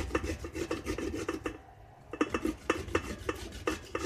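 Zucchini being grated on the large holes of a stainless-steel box grater: quick, repeated rasping strokes, with a short pause about one and a half seconds in before the strokes resume.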